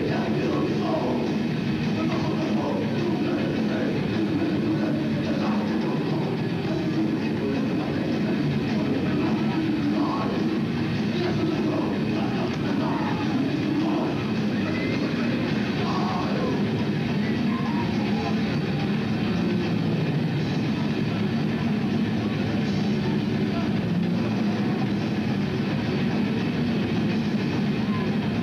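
Heavy metal band playing live: distorted electric guitars, bass and drums in a continuous, dense wall of sound, recorded from the crowd.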